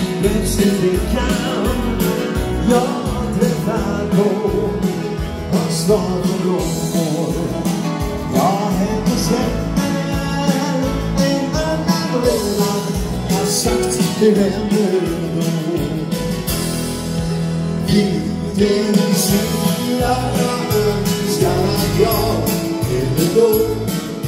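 Live dance band music with a steady beat, played through the hall's PA.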